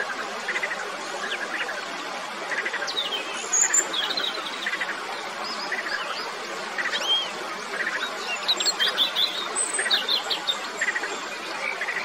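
Frogs calling in short pulsed notes about once a second, with quick high bird chirps scattered among them, thickest in the second half, over a steady hiss.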